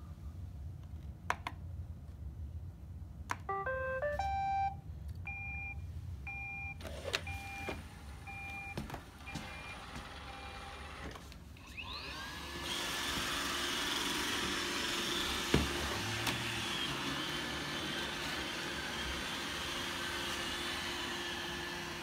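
A Roomba robot vacuum starts up: a few clicks, a short rising electronic tune and a run of beeps. About halfway through its motors whine up to speed, and it then runs steadily with a constant hum and a single knock.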